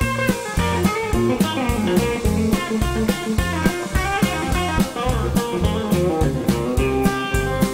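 Live blues band playing: electric guitar lead lines over electric bass and a drum kit keeping a steady beat.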